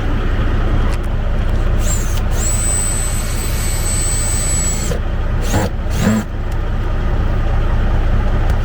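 Heavy truck diesel engine idling with a steady low rumble; a thin, high steady whistle sounds over it for about two and a half seconds in the middle.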